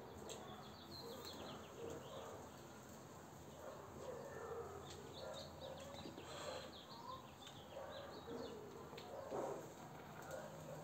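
Faint outdoor ambience with small birds chirping: clusters of quick high notes about a second in and again from about five to eight and a half seconds in.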